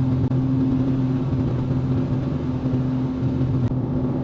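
Excavator's diesel engine running steadily with a constant low hum, with a faint click near the end.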